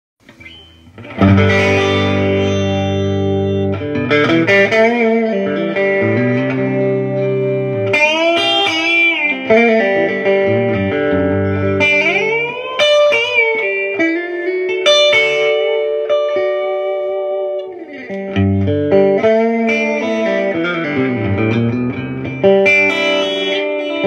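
Fender American Special Telecaster with Texas Special pickups played through a Fender Deluxe Reverb Tone Master amp, set to 0.5 watts with the volume around 6½: strummed chords and single-note lines with string bends, starting about a second in.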